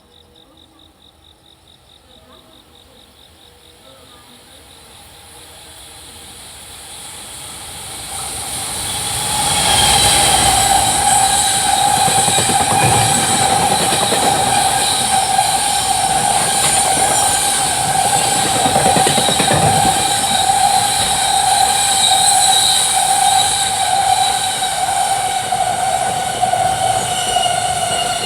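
Freight train, hauled by an EF210 electric locomotive, approaching at speed: it grows louder over several seconds, then passes close by with a loud, steady rush of wagons on the rails and a steady high hum that runs under it.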